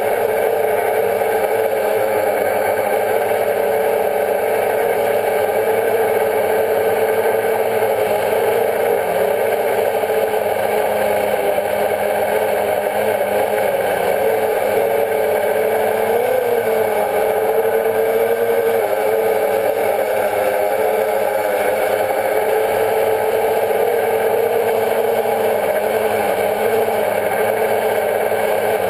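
Quadcopter drone's electric motors and propellers whirring steadily, heard from the drone's own onboard camera, a loud hum whose pitch wavers a little as the motors adjust, with a brief wobble about halfway through.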